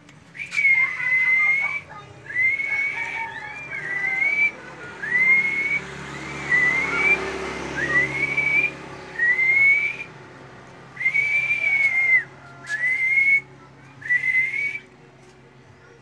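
A series of about ten loud, clear whistles, each about a second long, mostly rising or arching in pitch, with short pauses between them.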